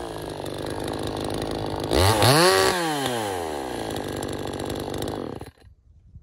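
Radley 52cc two-stroke chainsaw with its muffler opened up and the catalytic converter removed, idling, revved once to high speed about two seconds in and dropped back to idle, then cutting off about five and a half seconds in.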